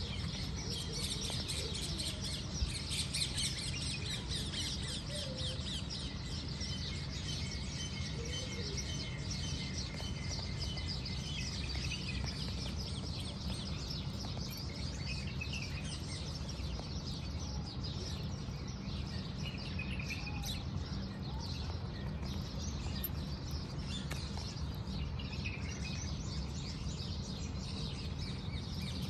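Many small birds chirping and twittering in the surrounding trees, busiest in the first several seconds and thinner later, over a steady low background rumble.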